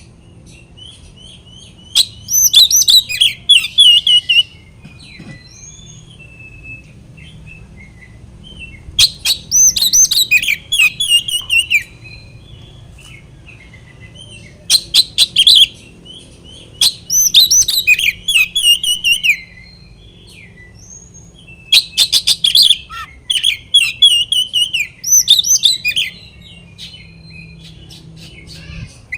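Oriental magpie-robin (kacer) singing in loud bursts of rapid whistled and chattering phrases, about five bursts with pauses of a few seconds between them. This is the agitated, challenging song used to goad a rival kacer into singing back.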